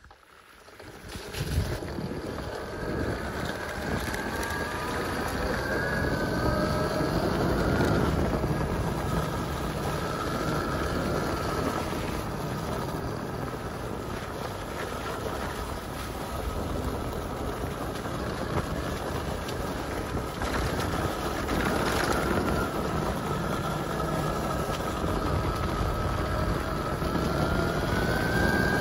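Wind buffeting the microphone and tyres rolling over a wet dirt road at speed, with a faint whine that glides up and down in pitch.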